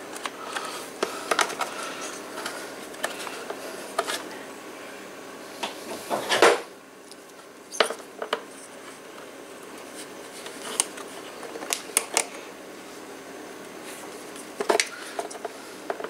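Scattered small metallic clicks and taps as pliers and a steel throttle cable knock against an outboard motor's throttle linkage while the cable end is worked into place. The loudest knock comes about six seconds in.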